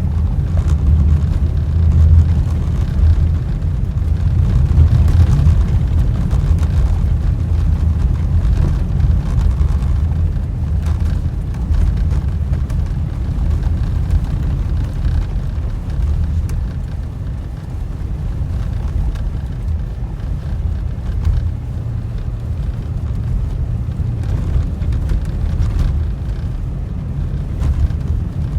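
Car driving, heard from inside the cabin: a steady, loud low rumble of road and engine noise.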